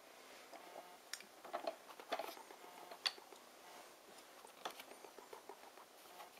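Faint, irregular clicks and clacks of a baby bouncer's wooden toy bar, its beads and wooden pieces knocking together as it is handled, about half a dozen scattered knocks.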